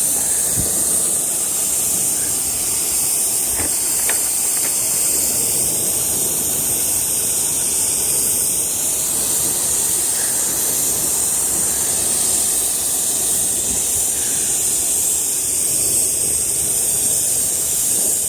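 Pressure sprayer spraying a wooden fence, a steady unbroken hiss of liquid from the nozzle.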